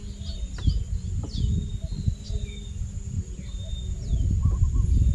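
Birds calling with short chirps and whistles over a steady high insect drone, with an uneven low rumbling noise underneath that grows louder near the end.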